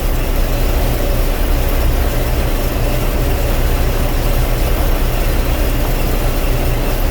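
Combine harvester running steadily while threshing corn: a constant heavy engine drone with machinery noise over it.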